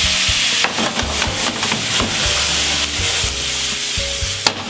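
Vegetables stir-frying in a pan over a high gas flame: a steady loud sizzle as the pan is tossed and stirred, with a run of clatters about a second in and a sharp knock near the end.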